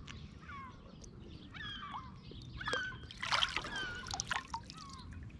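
Wet squelching and small clicks as a freshly killed fish's guts are worked by hand and knife, with short, repeated chirping calls of birds in the background.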